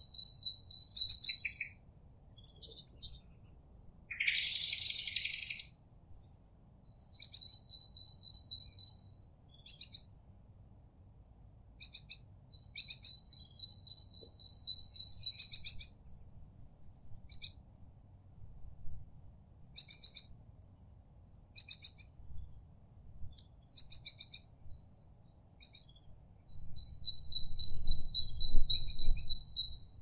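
Small songbirds singing and calling: high trills, each lasting a couple of seconds and repeated several times, with short high chip notes in between. A brief harsh, rasping sound about four seconds in.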